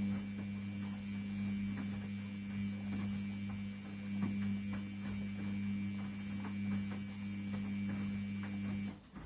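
Washing machine running with a steady electric hum from its motor or pump, with faint ticks and rattles over it; the hum cuts off suddenly near the end.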